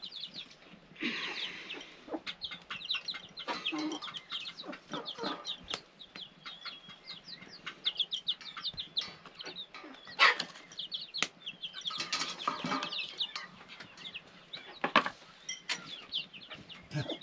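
Chickens clucking and chirping, many short high calls in quick succession, with a few sharp knocks in between, the clearest about ten and fifteen seconds in.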